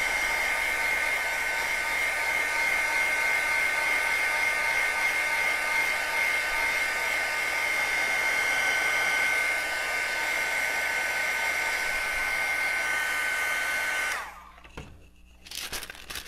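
Handheld craft heat tool running steadily, a blowing whir with a fixed high whine, drying texture paste on a paper tag. It switches off about fourteen seconds in, and wax paper rustles and crinkles as it is handled.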